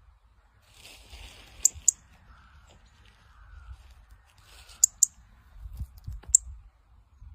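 A robin calling in short, sharp, high-pitched chips: two quick pairs and then a single note.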